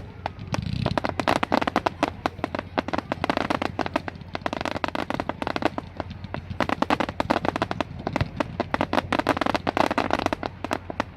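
Fireworks crackling: a rapid, dense run of small sharp pops. It swells and eases in waves several times.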